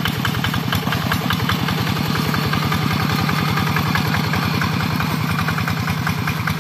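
Two-wheel hand tractor's single-cylinder diesel engine running steadily with a rapid, even chugging beat as it works the tractor's cage wheels through the paddy mud.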